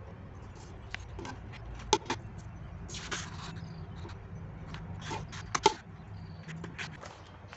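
Double-sided tape being pulled from its roll and pressed onto sheets of paper: scattered paper rustles and crisp clicks and taps, with a short rasp of tape unrolling about three seconds in.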